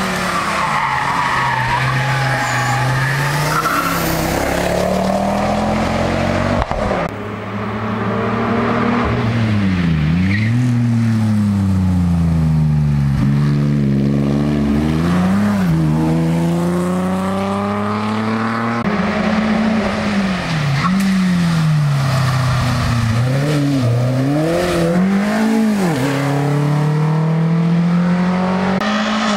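Hill-climb racing car engines revving hard: the pitch climbs through each gear, then drops and jumps back up in quick blips on downshifts for the bends, over and over.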